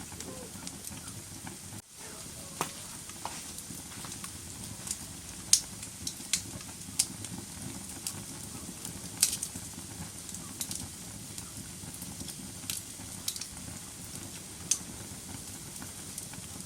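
Wood fire burning in a fireplace: a steady crackling hiss with irregular sharp pops of the burning wood, a few of them much louder than the rest. A momentary drop in sound just before two seconds in.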